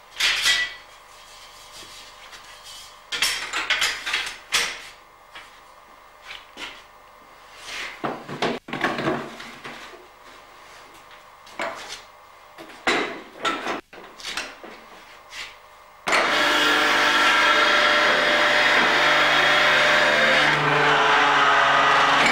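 A wooden herring barrel being handled, with scattered knocks and clunks. About sixteen seconds in, a barrel-working machine starts suddenly and runs loud and steady with a whirring, rasping noise as it works the barrel.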